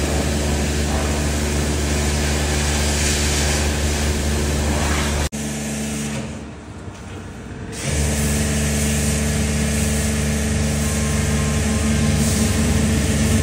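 Car-wash pressure washer spraying foam over a car: the pump motor hums steadily under a loud hiss of spray. Just after the middle the hum drops out for about two seconds, then starts again.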